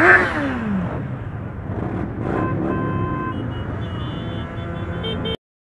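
A motorbike passes close by, its engine note dropping in pitch as it goes, over the steady rumble of heavy motorcycle traffic. Steady high tones sound in the second half, and the sound cuts off suddenly near the end.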